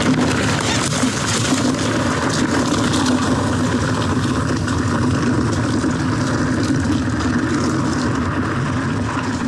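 Commencal Meta TR mountain bike rolling fast down a dry dirt-and-stone trail: steady tyre rumble and rattle from the bike, with many small knocks and clicks from stones and bumps.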